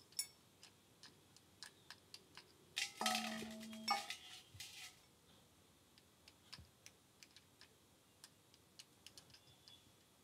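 Light metallic taps and clicks of a screwdriver against the primary drain cap on a Royal Enfield Bullet 500 UCE engine, knocking the cap to free it for the oil drain. The taps are irregular and faint, with a louder run of clinks and a brief ringing tone about three seconds in.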